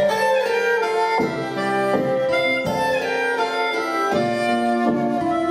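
Acoustic guitar strummed under a harmonica playing sustained melody notes: a short live instrumental interlude.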